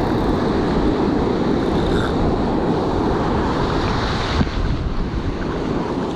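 Ocean surf washing up the beach, with heavy wind noise on the microphone.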